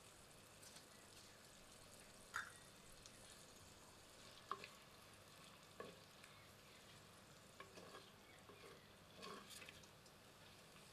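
Wooden spatula stirring chopped onions frying in oil in a black pot, knocking against the pot five or six times at irregular intervals over a faint steady sizzle.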